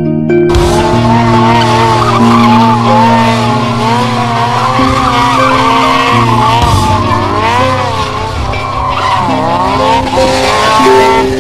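Motorcycle tyre squealing through a long drifting skid. The squeal wavers up and down in pitch and starts about half a second in.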